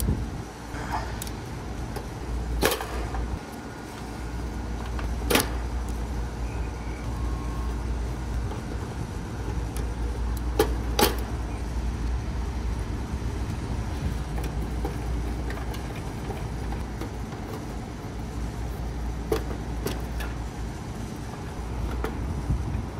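Sharp, irregular clicks and snaps of crimped spade connectors being pulled off and pushed onto a single-pole AC contactor's terminals with pliers, over a steady low rumble.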